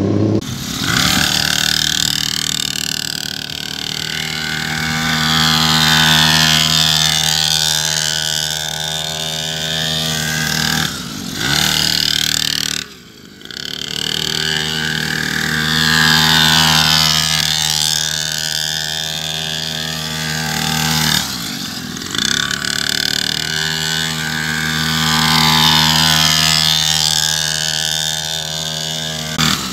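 Small mini dirt bike engine running at a steady part throttle, its sound rising and falling about every ten seconds as the bike laps its tight figure eights, with a short drop in the middle.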